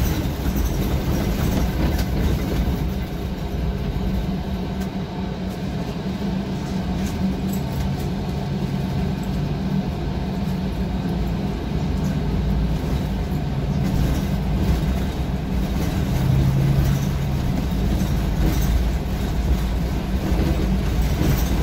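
City bus driving along, heard from the driver's cab: a steady low engine and road rumble with occasional light clicks and rattles.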